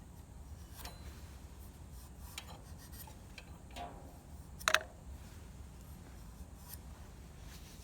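Light rubbing and scraping as the compressor motor's parts are cleaned by hand, with a few small clicks and one sharper click a little past halfway.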